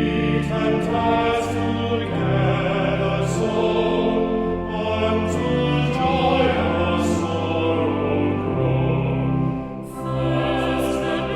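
Choir singing a hymn over sustained chordal accompaniment, with a short breath between lines about ten seconds in.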